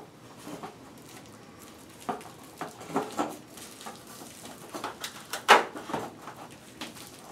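Irregular clicks, knocks and rustles of a metal ceiling light fixture base being handled and shifted against the ceiling while its foil-faced insulation crinkles, with the sharpest knock about five and a half seconds in.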